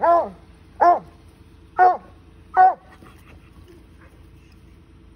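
Treeing Walker Coonhound barking in play: four short, loud barks about a second apart in the first three seconds.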